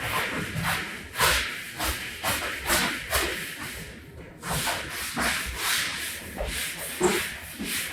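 Repeated rubbing strokes worked over a heavily soiled rug, about two strokes a second, with a short pause about four seconds in.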